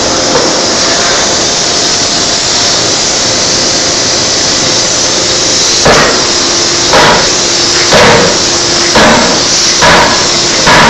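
Electro-hydraulic forging hammer: a steady loud machine hiss, then from about halfway its ram starts striking a red-hot workpiece on the die. There are about six heavy blows, roughly one a second.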